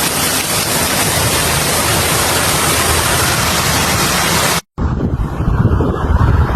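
Heavy hail and rain pelting down in a dense, steady hiss. About two-thirds of the way through it cuts off, and a lower, gusting rumble of wind buffeting the microphone follows.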